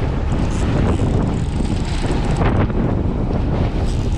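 Strong wind buffeting the microphone on a boat in stormy weather: a loud, steady rumble with no clear tones.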